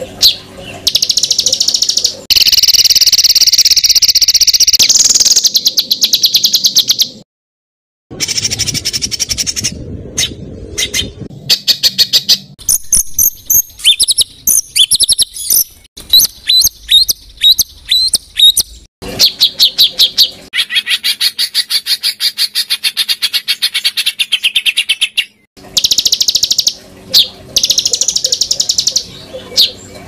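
Songbird tutoring recording of harsh, rapid-fire 'tembakan kasar' calls: fast runs of repeated high chips and dense trills, spliced together from separate clips with abrupt cuts and a brief silence about seven seconds in.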